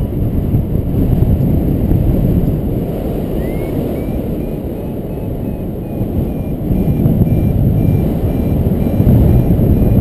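Heavy wind rushing over the microphone of a paraglider pilot in flight. From a few seconds in, a paragliding variometer beeps faintly in a quick even series of short high beeps, the climb tone that signals rising air.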